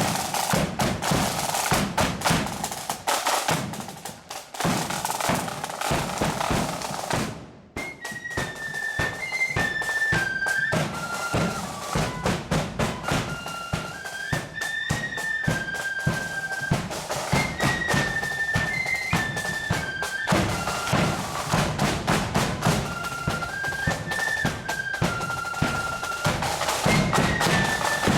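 Marching flute band: snare and bass drums play alone for about seven seconds, then after a sudden short break the flutes come in with a melody over the drums.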